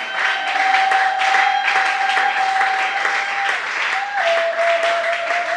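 Church congregation applauding steadily, with one long held high note sounding over the clapping that steps down in pitch about four seconds in.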